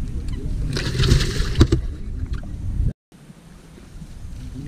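Low wind rumble on the microphone, with a watery splash and a couple of knocks about a second in as a bass goes into the boat's livewell. The sound cuts out for a moment a little before three seconds, then a quieter rumble of wind and water follows.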